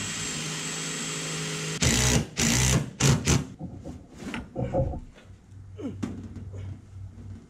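Cordless drill driving a screw to fasten the copper propane line down: the motor runs steadily for about two seconds, then comes several short loud bursts, followed by lighter knocks and handling of the tubing.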